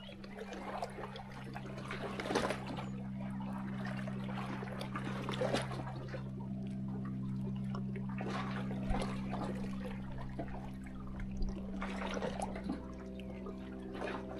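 Small sea waves lapping and splashing against shoreline rocks, a wash of water every few seconds. A steady low hum runs beneath.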